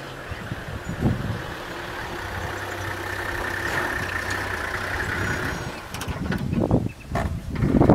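Vehicle engine idling with a steady low hum. Several short, loud sounds come near the end.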